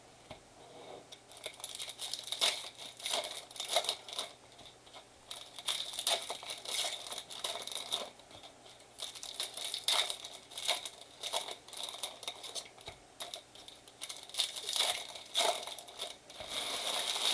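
Plastic wrapping of trading card blaster boxes and packs crinkling and tearing in irregular bursts as they are ripped open.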